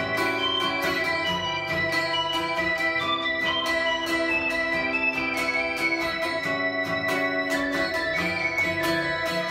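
Electric keyboard and strummed acoustic guitar playing an instrumental passage of a song, the keyboard holding sustained chords over regular guitar strums.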